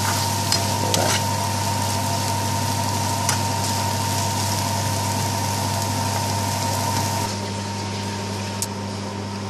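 Mushroom bhaji sizzling in a frying pan while a metal spatula stirs it, with a few scrapes of the spatula on the pan, over a steady low hum. About seven seconds in, the sizzle stops and only the hum remains.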